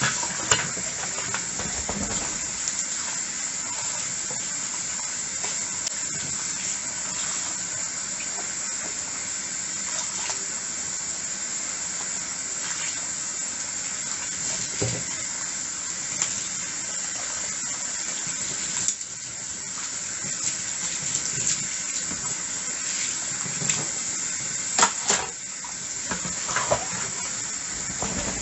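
Kitchen tap running steadily into a sink during dishwashing, with a few sharp clinks of dishes, the loudest near the end. The flow dips briefly about two-thirds of the way through.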